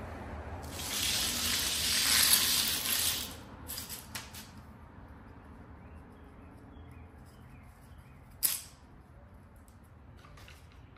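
Screen mesh being handled and dragged over the concrete floor, a noisy rustle for about three seconds. This is followed by a few light clicks and one sharp click as rubber spline is pressed into the aluminum screen frame's channel.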